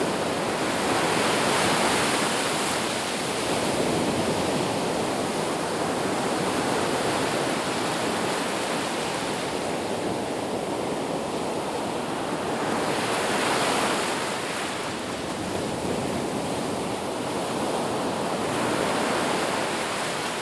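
Sea waves breaking on a beach, a continuous wash of surf that swells and recedes every few seconds, with a louder break about thirteen seconds in.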